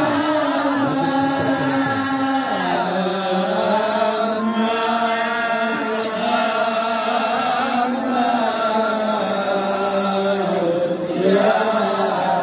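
A group of voices chanting together in unison through microphones, in long drawn-out melodic lines that slide slowly between held notes.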